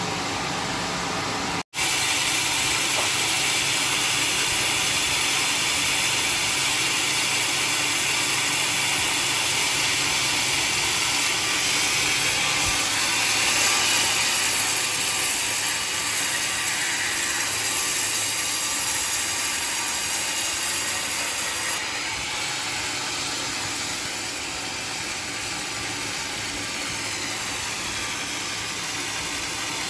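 Band sawmill running, its blade sawing through a log with a steady mechanical noise. The sound cuts out for an instant about two seconds in, then carries on.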